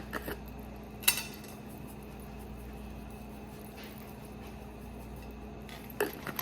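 Seasoning containers and a small bowl being handled: a sharp click about a second in and a few light clicks and taps near the end, over a steady low hum.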